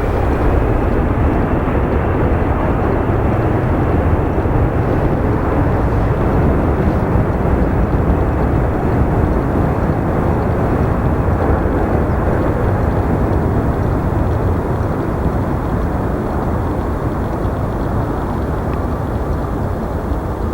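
Airbus A321-211 airliner's CFM56 jet engines running at high power close by: a loud, steady rushing noise that slowly fades toward the end.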